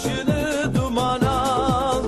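Background music with a steady drum beat and a wavering, vibrato melody.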